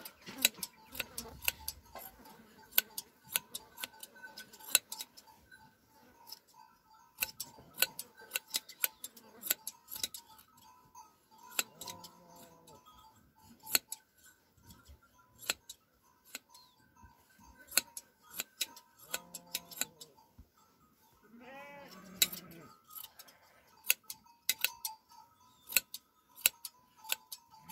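Hand shears snipping through a sheep's fleece: rapid, irregular sharp clicks of the blades. The sheep bleats a few times, about 12, 19 and 22 seconds in.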